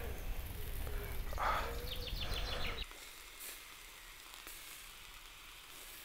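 Sausages sizzling on a grill grate over a campfire, with a bird calling a few short notes in the first half. About three seconds in the sound drops suddenly to a faint hiss.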